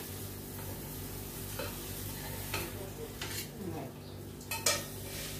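Steady faint sizzle and hiss of oil heating in a kadai on a gas burner, with a few light clinks of a steel spatula against a steel plate as an omelette is slid onto it.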